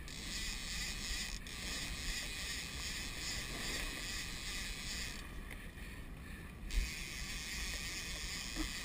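Small outboard-powered boat at sea: a steady low rumble under a wash of wind and water hiss, with one short thump about seven seconds in.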